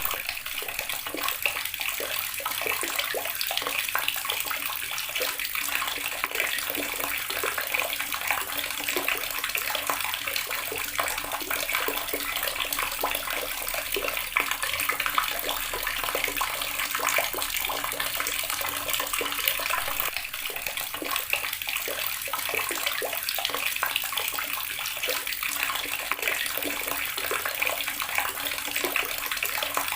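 Water running steadily from a tap and splashing into a basin or tub below, a constant dense patter of small splashes.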